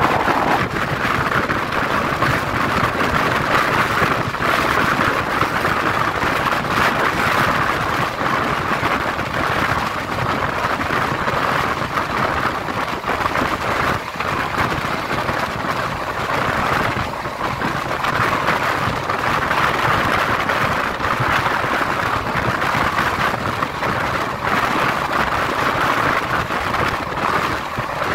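Shantiniketan Superfast Express passenger train running along the line: a loud, steady rush of running noise from the wheels on the rails, unbroken and without pause.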